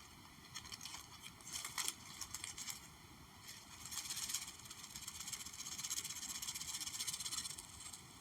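Soft ASMR trigger sounds: a few light clicks about one and a half to two seconds in, then a longer stretch of soft hissing rustle and scratching from about four seconds until near the end.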